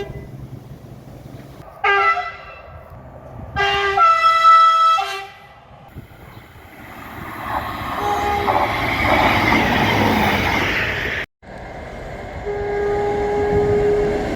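Train horn sounding a chord of several notes: a short blast about two seconds in, a longer one around four to five seconds, then the rising rumble of a passing train that cuts off suddenly, and another steady horn blast near the end.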